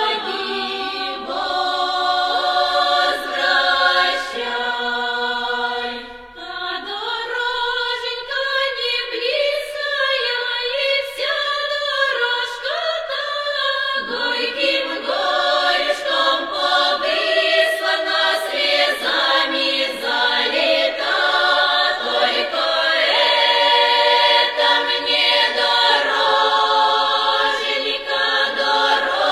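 A choir singing a cappella, several voices holding and shifting chords with no instruments.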